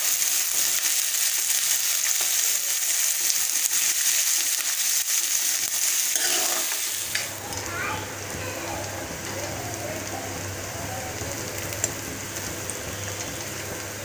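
Chopped onions frying in ghee in a steel kadai, sizzling steadily as they are stirred with a metal spoon on their way to golden brown. About halfway through the sizzle drops quieter and a low steady hum comes in underneath.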